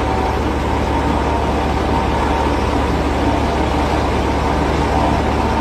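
Helicopter's turbine engine and rotor running at high power on the ground, spooling up for takeoff: a steady, loud drone with a high whine over it.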